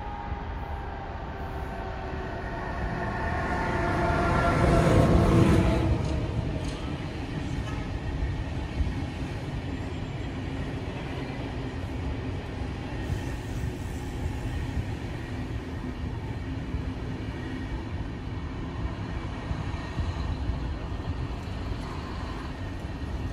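Train passing close by, loudest about five seconds in, with a whining tone that falls in pitch as it goes past. A steady rumble of wheels on the track follows.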